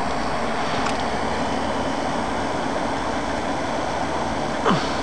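Steady rushing outdoor background noise, with one brief sound falling quickly in pitch near the end.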